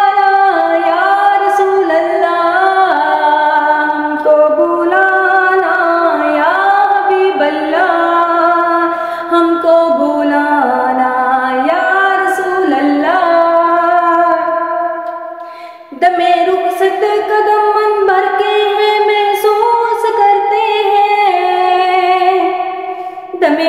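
A woman singing an Urdu naat solo and unaccompanied, in long held notes that glide between pitches. Her voice fades out about fifteen seconds in and comes back a second later with the next line.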